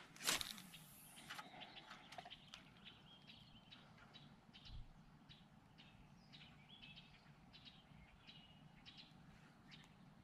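Faint, scattered chirps of small birds over near silence. A brief rushing hiss comes just after the start, and a soft low thump about halfway through.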